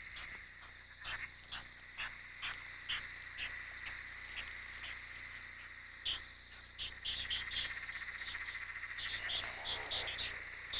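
Night chorus of frogs and insects: a steady high trill with short chirping calls repeating about twice a second, and a thicker pulsing trill building near the end.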